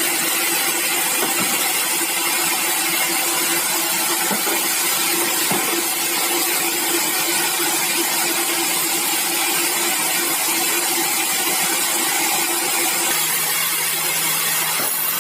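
Sawmill saw machinery running steadily through bengkirai hardwood, a loud, even hiss with a steady hum under it; a lower hum comes in near the end.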